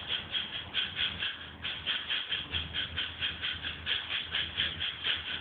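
Hydrotherapy water treadmill running with a dog walking in the water, making an even rhythmic swishing at about four to five beats a second.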